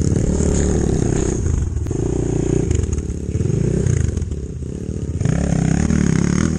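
Chinese enduro motorcycle engine revving under throttle while riding, its note climbing and dropping several times and swelling again near the end.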